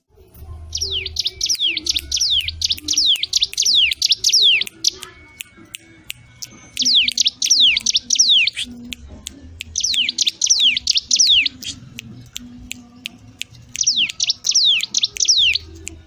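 Caged cigun songbird singing in full voice. Its song comes in four runs of quick, sharply falling whistled notes, about three a second, with short pauses between the runs.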